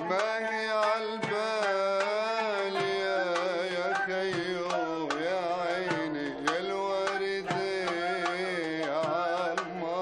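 Traditional Arabic takht ensemble playing: qanun, oud, nay and darbuka, with a long wavering, sliding melodic line over plucked strings and regular drum strokes.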